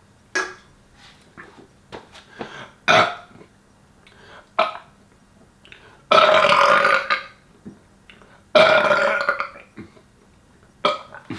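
A man belching twice, loud and about a second long each, from the gas of seltzer water he has just chugged. The first belch comes about six seconds in and the second about two and a half seconds later, with a few short, sharp sounds before them.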